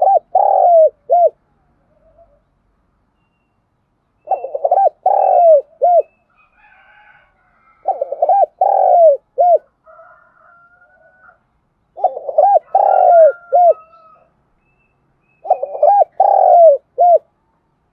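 Spotted dove cooing as a decoy: five repeated phrases, each a few short coos and a longer drawn coo ending in two short notes, about every four seconds. This is the call used to lure wild spotted doves. Fainter calls of other birds are heard between the phrases.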